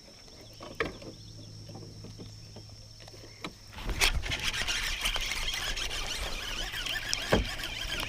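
Faint insects with a steady high tone, then about four seconds in a sudden loud rush, after which a fishing reel squeals and rasps without a break as line is worked against a freshly hooked bass.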